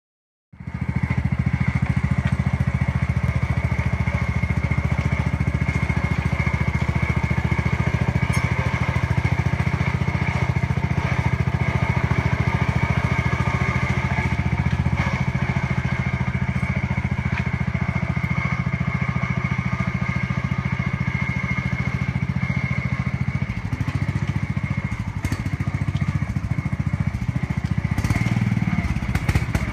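Gravely Professional two-wheel tractor's 13.5 Robin-Subaru engine running steadily, with a steady high whine above the engine note. The sound grows uneven near the end, as the machine is walked across gravel.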